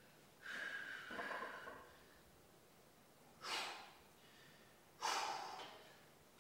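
A weightlifter breathing hard in three forceful breaths, the first longer and the other two short and sharp, of the kind that come with straining through a heavy set.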